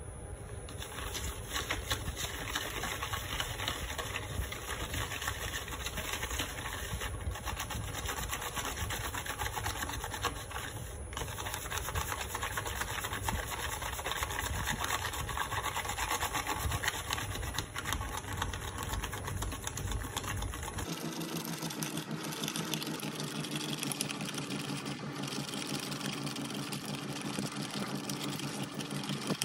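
Steel spoon rapidly beating instant coffee, sugar and a little water in a bowl, a fast continuous scraping and rubbing against the bowl as the mixture is whipped into a froth. About two-thirds of the way through, the low rumble under it drops away.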